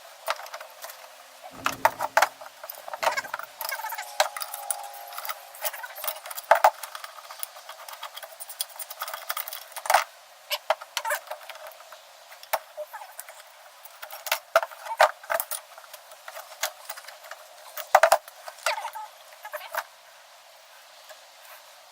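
Irregular metal clinks, taps and knocks from hand tools and parts being handled while a brass faucet is taken apart, with a few louder clanks scattered through.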